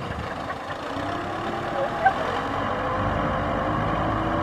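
Kubota M6040SU tractor's diesel engine running steadily as it hauls a loaded trailer across a field, with a short sharp knock about two seconds in and faint voices.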